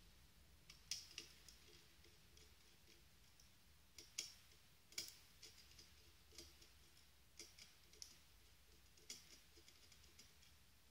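Faint, irregular clicks and ticks of a small screwdriver turning small bolts and knocking against the parts as they are fastened by hand.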